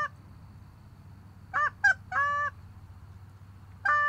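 Goose honking: about five loud, clear honks, each bending up in pitch at its start. Three come close together about two seconds in, the middle one very short.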